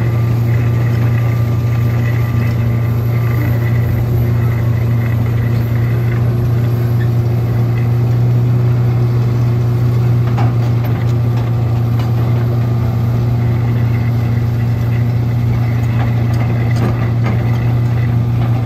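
Komatsu PC600LC-8 excavator's six-cylinder turbo-diesel engine idling, a steady low drone that holds even throughout.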